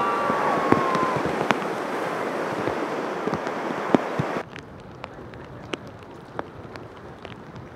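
Surf washing onto the beach, a loud steady hiss of breaking waves, with a long high call fading out about a second in. About four and a half seconds in it cuts to a quieter wet scene: light rain with scattered sharp taps of drops on the pier.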